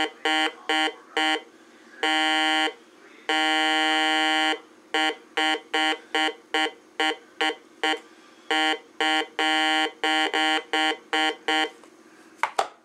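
Heathkit GD-1190 metal detector's speaker beeping with a buzzy tone, about three short beeps a second, drawn out into two longer steady tones near the start. Its response to metal passed over its search coil.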